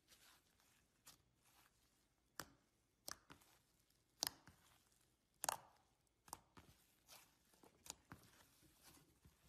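Thick, foamy slime being stretched, poked and squeezed by hand, giving sharp wet pops and clicks about once a second, the loudest near the middle.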